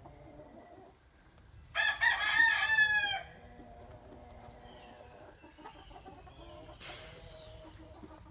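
A loud crowing call from a fowl: several linked notes lasting about a second and a half, starting just under two seconds in and dropping in pitch at the end. Near the end comes a shorter, harsher call.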